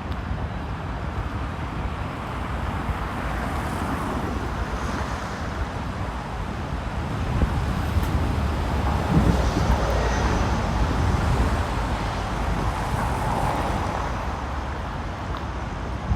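Road traffic on a city street, swelling as vehicles pass in the middle and easing off near the end, with wind buffeting the microphone as a low rumble.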